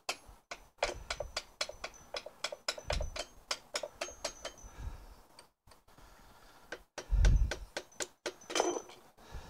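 A soft-faced mallet tapping a shaft to drive it out of a David Brown 990 tractor's Selectamatic gearbox casing: a steady run of light taps, about three a second, for the first five seconds. A heavier, duller thump comes about seven seconds in, and a few more taps near the end.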